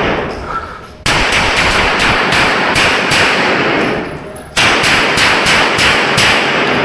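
Rapid pistol fire in fast strings of shots, about four a second, heavily echoing. The shooting breaks off briefly about a second in and again just after four seconds in, then resumes each time.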